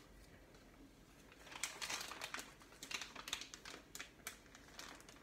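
Faint crinkling and rustling of a plastic zip-lock food bag being handled and filled from a plastic container, in short irregular rustles and clicks starting about one and a half seconds in.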